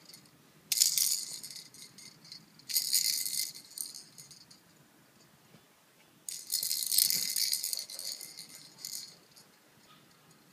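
Baby's handheld toy rattle being shaken in three bursts of rattling: one about a second in, another around three seconds, and a longer one from about six to nine seconds.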